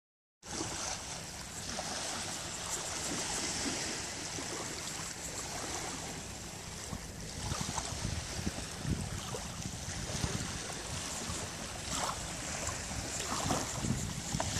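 Small waves of a calm sea lapping and washing onto a sandy beach, starting abruptly about half a second in, with a few sharper splashes near the end. Wind buffets the microphone underneath.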